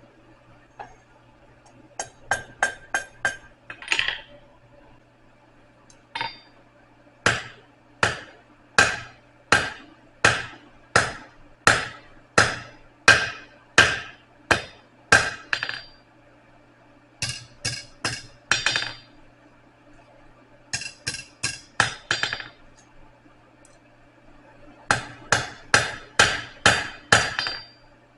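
Blacksmith's hammer striking steel on an anvil, ringing blows in runs of quick strikes with short pauses between, over a faint steady low hum.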